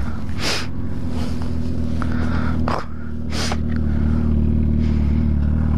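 Suzuki GSX-R sportbike engine idling steadily, with two short rasping sounds, about half a second in and again about three seconds later, as the rider tugs and adjusts his riding gloves.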